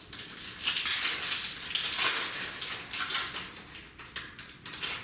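Crinkling and rustling of Magic: The Gathering booster pack wrappers and cards being handled, a quick run of sharp crackles that trails off near the end.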